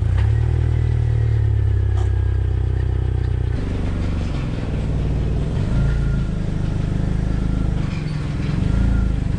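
Jeep Wrangler TJ engine running while being driven. The engine note holds steady, then changes about three and a half seconds in.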